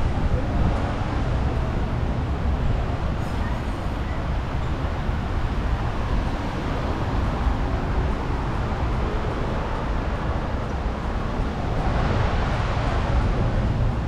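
Steady street traffic noise, with one vehicle passing louder near the end.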